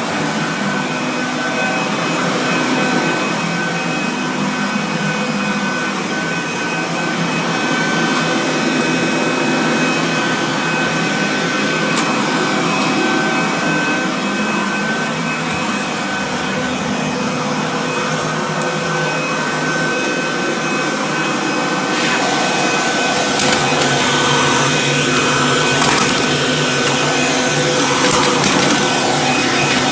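Kirby Classic III upright vacuum cleaner running steadily, with a motor whine over the rush of air. Its sound gets brighter and harsher about two-thirds of the way in.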